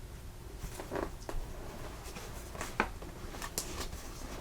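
Cardboard package being cut open with a knife and handled: a few soft, scattered scrapes and clicks.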